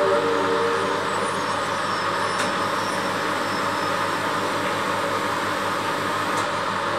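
Steady low hum and hiss of running aquarium equipment, such as a filter or air pump.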